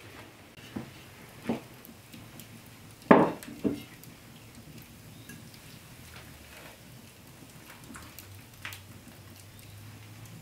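Ceramic bowls handled on a wooden table: a few separate clinks and knocks, the loudest about three seconds in, with a quieter one later on.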